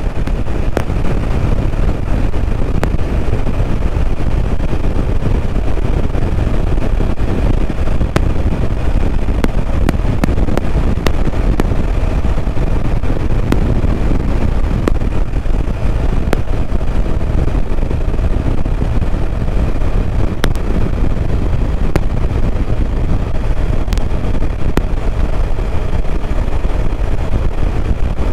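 BMW R1200RT motorcycle on the move at a steady pace: its flat-twin boxer engine under a constant rush of wind and road noise.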